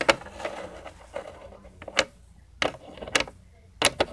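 Hard plastic toy pieces clicking and knocking against a plastic playhouse as they are handled: a handful of sharp, separate clicks, the loudest right at the start.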